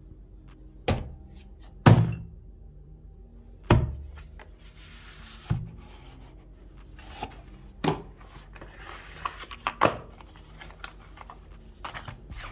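A cardboard smartphone box and its contents handled and set down on a hard tabletop: about six sharp thunks at irregular intervals, the loudest about two seconds in. Between the thunks comes softer sliding and rustling of cardboard.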